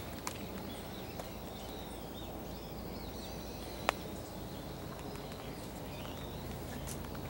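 Outdoor woodland ambience with small birds chirping over a steady low background hum. A few light clicks, the sharpest about four seconds in.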